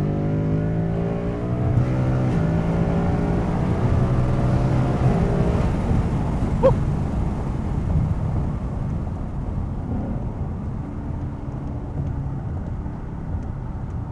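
2020 Mustang GT's 5.0 V8, on an E85 tune with an H-pipe and resonator delete, accelerating hard: the pitch climbs, drops at an upshift about two seconds in, climbs again, then eases off to a steadier cruise.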